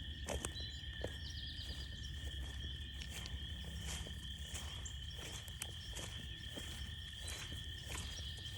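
Frog chorus in full voice: a dense, steady high-pitched trilling with a second, lower steady band beneath it, along with scattered footstep crunches on a trail.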